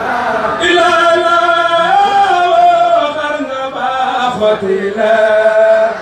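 Male voice chanting an Arabic religious poem (qasida) in long, drawn-out notes that slide between pitches, with no instruments.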